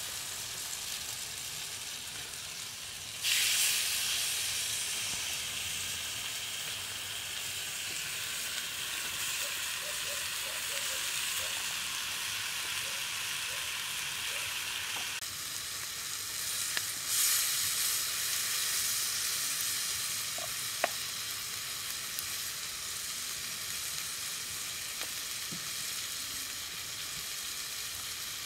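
Marinated chicken legs sizzling on a hot flat stone slab over a wood fire: a steady high hiss that gets louder about three seconds in and again later, with a few small pops.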